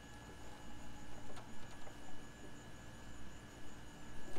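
Steady background hum with a few thin, constant higher tones over it, and a faint click about a second and a half in.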